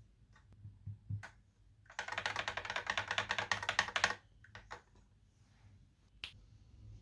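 Typing on a Fantech Maxpower MK853 mechanical keyboard: a fast run of key clicks lasting about two seconds in the middle, with a few single keystrokes before and after.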